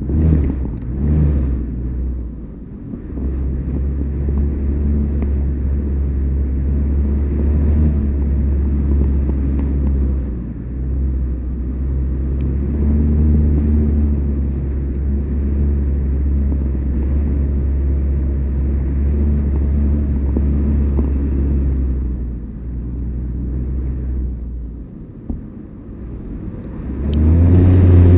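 Steady low wind rumble buffeting a GoPro camera carried aloft on a kite line, easing off for a few seconds near the end and then rising again.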